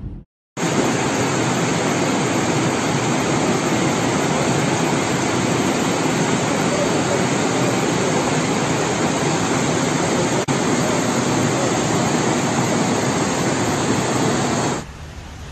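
Loud, steady rush of flash-flood water and heavy rain, starting suddenly just after the start and cutting off abruptly near the end, with a momentary break about ten seconds in.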